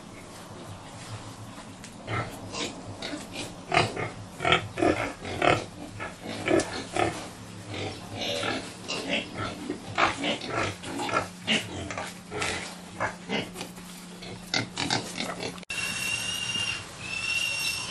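Pigs grunting and squealing in their pens, many short calls in quick succession. Near the end the sound cuts off suddenly, and high chirping bird calls follow.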